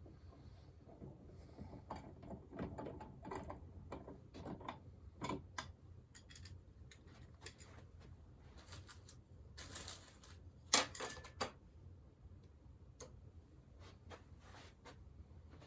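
Faint scattered clicks, ticks and scrapes of a screwdriver working the screws of a wall light switch's cover plate as the plate is taken off, with a louder cluster of sharp clicks about ten seconds in.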